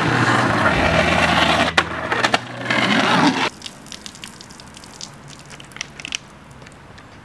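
Skateboard wheels rolling on asphalt with a sharp clack of the board a little under two seconds in. The sound cuts off abruptly about halfway through, leaving a much quieter stretch with a few light clicks.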